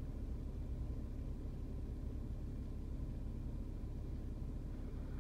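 Steady low rumble of a car idling, heard from inside the cabin while stopped in traffic.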